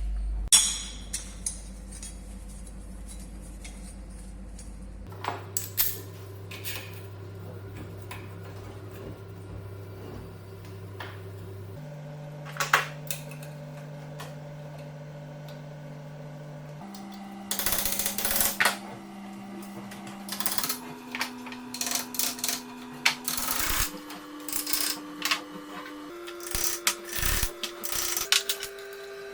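Sharp clicks and knocks of metal parts being worked, scattered and coming more often in the second half, over a steady low tone that steps up in pitch every few seconds.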